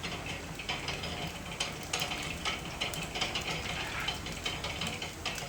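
Tulumba-making machine running, its mechanism giving off irregular mechanical clicks and rattles over a steady low hum.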